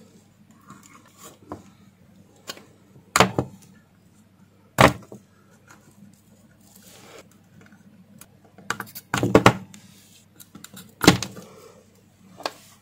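Sharp clicks and knocks, about five loud ones among smaller ticks, from desoldering MOSFETs off an inverter circuit board with metal tweezers and a soldering iron: parts pulled free and dropped, the board shifted on the bench. Under them runs a steady low hum.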